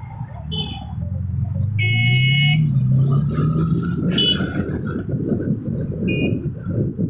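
Road traffic with several horn toots: a short one about half a second in, a longer, louder one around two seconds, and short ones after four and six seconds. Under them a vehicle engine rises in pitch as the traffic pulls away, then wind rushes over the microphone of the moving two-wheeler.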